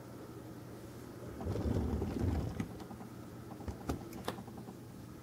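Handling noise from a 1/50-scale diecast concrete mixer truck model being picked up and tipped onto its side. A low, muffled rustling comes first, then a few light clicks of the model against hands and table.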